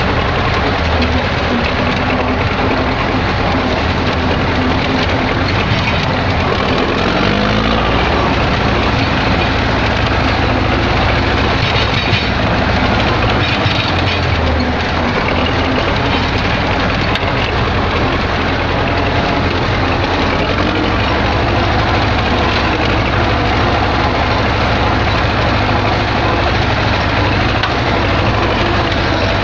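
MTZ-80 tractor's four-cylinder diesel running steadily under way, with a dense noisy haze over the engine rumble. The engine pitch rises briefly about seven seconds in.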